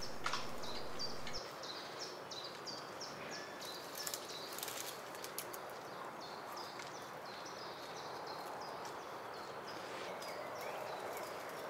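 A small songbird singing long runs of short, high, repeated notes, about three a second, over a soft outdoor hiss. A few faint clicks come about halfway through.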